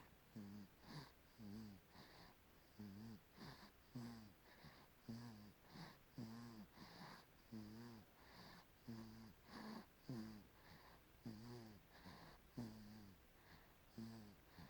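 Sleeping baby snoring faintly: quick, regular, wheezy snoring breaths, about three every two seconds.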